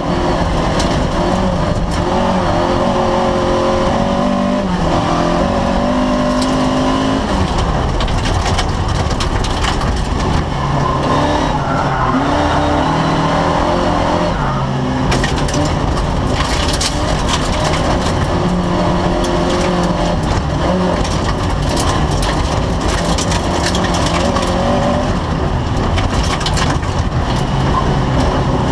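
Racing car's engine heard from inside the stripped cabin, driven hard: its pitch rises and drops back again and again as it is revved through the gears. From about halfway on, frequent sharp clatters, like loose stones thrown against the body and floor, ride over the engine.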